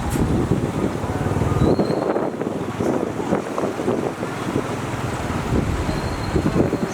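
Heavy diesel construction machinery running, with two brief high squeaks about two and six seconds in.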